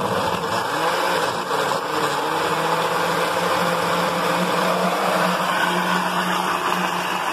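Electric countertop blender running at full speed, puréeing boiled tomatillos, cilantro and water into a green sauce: a steady motor hum over the churning liquid. Its pitch wavers in the first couple of seconds, then holds steady.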